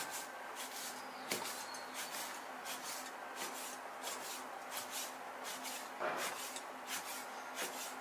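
Chinese cleaver slicing lean pork into thin pieces. The blade taps softly on an end-grain wooden chopping board in a steady series of light strokes, a little under three a second.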